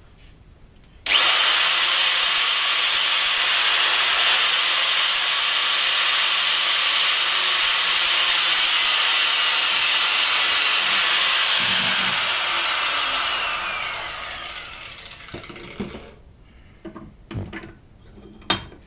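Angle grinder cutting through stainless-steel braided PTFE fuel hose held in a vise: it starts abruptly about a second in, runs loud and steady, then spins down with a falling whine. A few knocks near the end.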